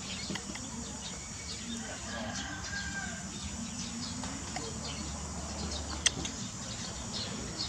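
Scattered short bird chirps and calls over steady outdoor background noise, with one sharp click about six seconds in.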